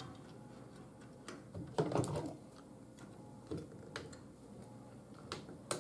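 Scattered light clicks and knocks of chicken wire and a staple gun being handled on a wooden shelf frame, the loudest cluster about two seconds in.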